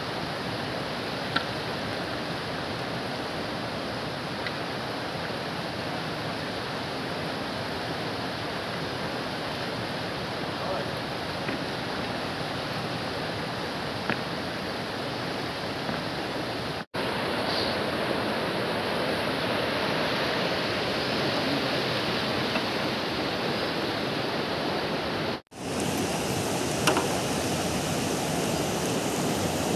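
Fast-flowing river rushing over boulders, a steady, even rush of water. The sound cuts out for a split second twice, about 17 and 25 seconds in.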